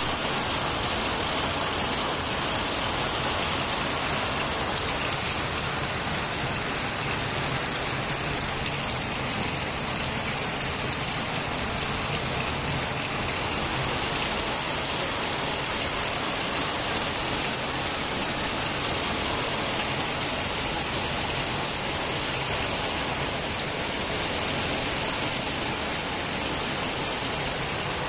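Heavy rain falling steadily on a flat concrete rooftop, a constant even rush that does not change in strength.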